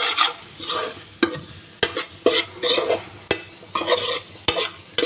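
Metal spatula stirring and scraping onions, capsicum and ground spices frying in butter and oil in a pan. Sharp knocks of the spatula against the pan come about one to two a second over a light sizzle. This is the stage where the masala is cooked through before the bhaji goes in.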